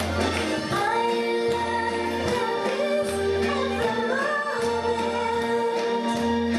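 Recorded song with a singer holding long notes over a band accompaniment and recurring low bass notes, played as line-dance music.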